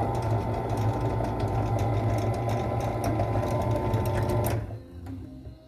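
Makita M2300 miter saw's electric motor switched on, running steadily with a rattling buzz for about four and a half seconds, then cut off and winding down. The owner has found the saw's main shaft bent at its thin end.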